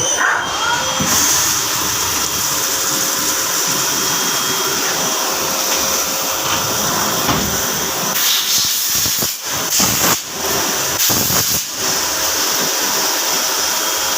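A loud, steady hiss that drops out briefly three times in the second half.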